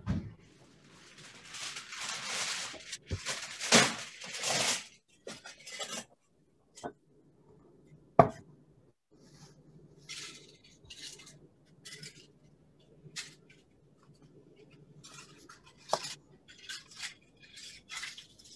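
Kitchen clatter of pans, dishes and utensils being handled: a rustling stretch in the first few seconds, then scattered clinks and knocks, the loudest a sharp knock about eight seconds in.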